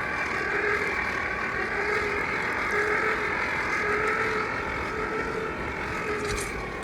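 Steady whirring of an air blower feeding a freshly lit coal forge fire, with a faint wavering hum running through it.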